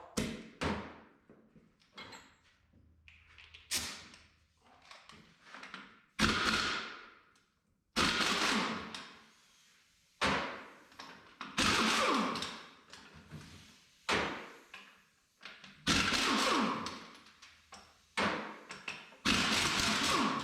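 A string of sudden mechanical clunks from tools and metal parts being worked on the tractor's hydraulic touch control housing, about ten of them in the second half, each hitting sharply and dying away over a second or so.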